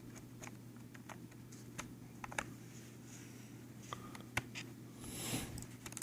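Light scattered clicks and ticks of a laptop memory module being handled and lined up with its slot inside a MacBook Pro, with a brief rustle shortly before the end and a sharper click right at the end.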